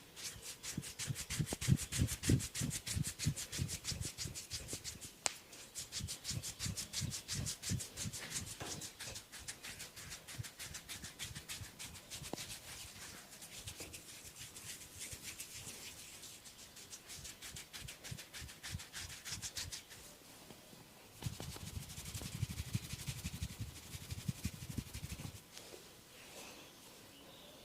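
Hands rubbing briskly through hair on a man's scalp in a head massage: fast, rhythmic rubbing strokes with soft low thuds. They stop briefly about 20 seconds in, start again, then die away near the end.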